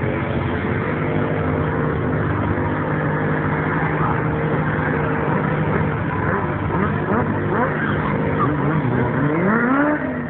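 Engine of a vehicle doing a tyre-smoking burnout, held at steady high revs, then revved up and down in quick swoops near the end.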